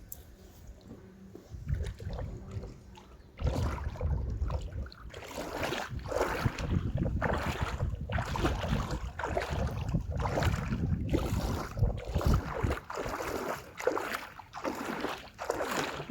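Wind buffeting the microphone, with repeated splashing and rustling sounds around a small boat stuck on a river shoal, about once a second.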